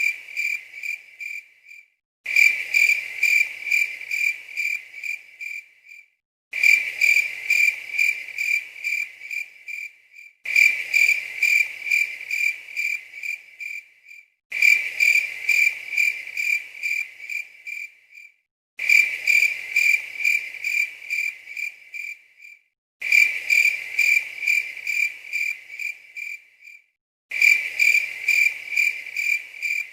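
A cricket chirping in steady, evenly spaced high chirps, about two to three a second. The recording is looped: every four seconds or so the chirps fade, cut off suddenly for half a second, and the same stretch starts again.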